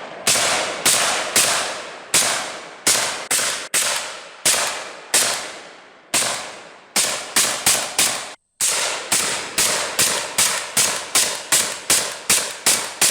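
Suppressed Zastava ZPAP85, an AK-pattern pistol with a 10-inch barrel, firing about thirty semi-automatic shots. Each is a sharp report that trails off. The shots come slower at first, then about three a second in the second half.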